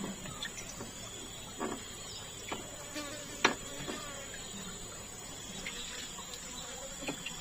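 Insects droning steadily in a single high-pitched tone, with a few faint sharp clicks; the loudest click comes about three and a half seconds in.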